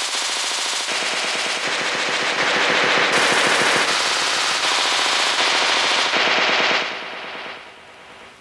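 A rain recording sampled into a tablet keyboard app and played key by key: a rapid crackling patter of raindrops that shifts in pitch and tone with each new key, about once a second. It dies away about seven seconds in, leaving a faint hiss.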